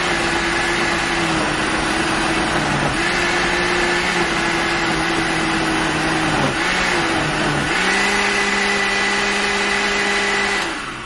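Countertop blender running, grinding a thick mixture of stewed chiles and onions into sauce. Its motor pitch drops and climbs back several times as it works, then the motor stops near the end.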